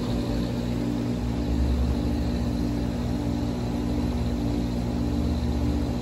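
Hayward HeatPro heat pump pool heater running with a steady whirring hum and a low drone, while the unit sits in its start delay waiting for the compressor to kick on.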